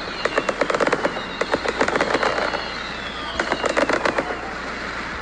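Fireworks crackling: rapid, dense crackles in waves, like a string of small pops, with a faint whistle gliding down in pitch.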